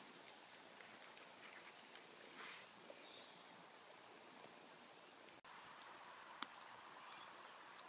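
Near silence: faint outdoor background hiss with scattered faint ticks.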